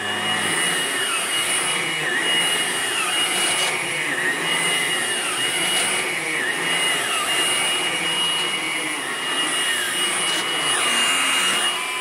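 Hoover Blade+ cordless stick vacuum running on carpet: a steady high motor whine, with a lower tone that dips and recovers every second or two as it is pushed over the pile.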